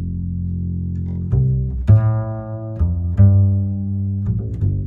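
Background music: low bowed and plucked strings playing a bass line that changes note every second or so.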